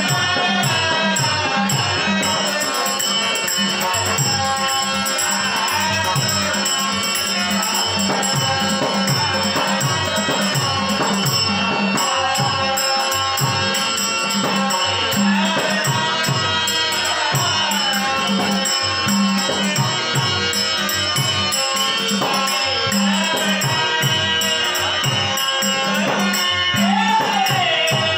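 A live Marathi love song from Konkan folk theatre. A male singer's gliding melody runs over a steady harmonium drone, a two-headed barrel drum (pakhawaj) beating a regular rhythm, and small hand cymbals ticking fast and steadily.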